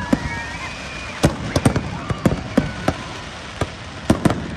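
Fireworks going off in an irregular series of sharp bangs and crackles, about a dozen in all, bunched in the middle and again near the end.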